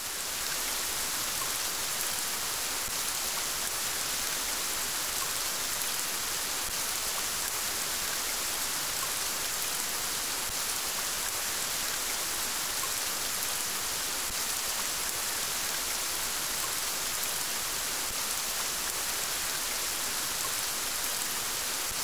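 Steady rainfall: an even hiss of rain that fades in over about the first second and then holds level.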